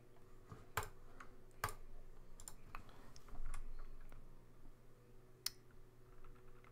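Scattered clicks of a computer mouse and keyboard keys: a handful of separate sharp clicks, roughly a second apart, with a soft low bump a little past three seconds in.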